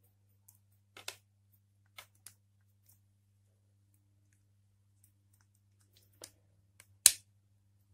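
Small plastic and metal parts of a taken-apart CPU fan motor being handled, giving scattered clicks and taps, the loudest near the end, over a faint low steady hum.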